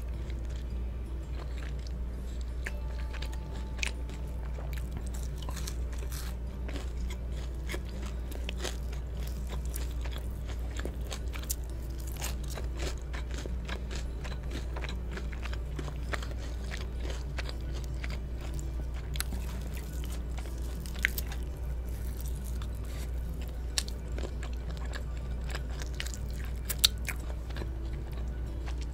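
Close-miked biting, crunching and chewing of crispy cheese-coated Korean fried chicken: a steady run of small crackling crunches, with a few sharper ones in the second half, over a low steady hum.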